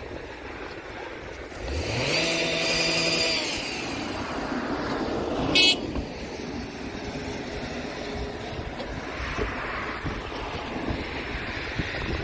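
Steady noise of a distant taxiing airliner and wind. About two seconds in, a pitched mechanical sound rises and then holds for roughly two seconds. Midway there is one short, sharp, high-pitched sound, the loudest moment.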